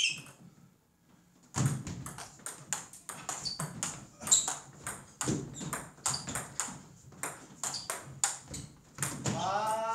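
Table tennis rally: the ball clicks off the rackets and bounces on the table in quick alternation, starting about a second and a half in, a few hits a second. A short pitched squeal comes near the end.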